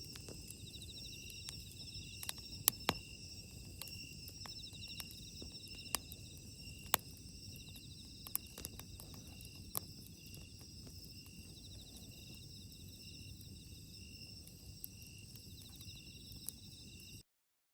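Wood bonfire crackling with sharp pops and snaps of burning wood over a low, steady rush of flame, the loudest pops a few seconds in and around seven seconds. Insects chirp steadily in an even pulsing rhythm behind it. The sound cuts off just before the end.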